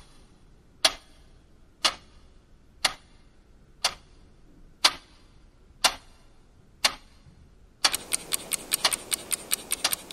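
Clock ticking, one sharp tick about once a second; about eight seconds in the ticks speed up to several a second.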